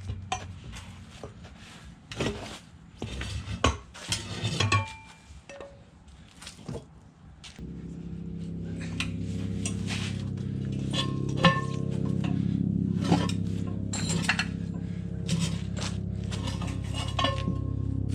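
Metal clinking and clanking of a Harbor Freight manual tire changer's bar working around a steel wheel rim to pry the tire bead off, in scattered knocks. About seven and a half seconds in, steady background music comes in under the clinks.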